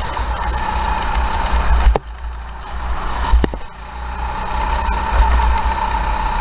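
Sodi racing kart's engine running at speed with wind buffeting the helmet-mounted microphone. About two seconds in the engine note drops sharply as the driver lifts off for the corner, then it builds again as he gets back on the throttle.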